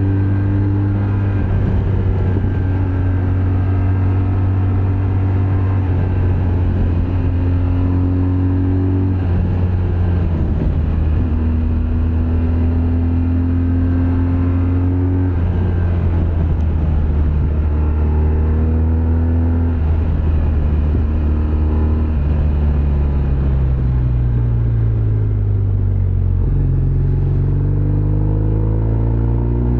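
Motorcycle engine under way while riding. The revs climb and drop back several times as the gears change, then ease off and pick up again near the end, over steady wind and road rumble.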